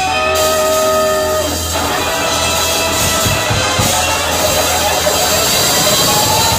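A live rock band playing loud: a Telecaster-style electric guitar over bass guitar and drum kit, with a few notes held out in the first second and a half.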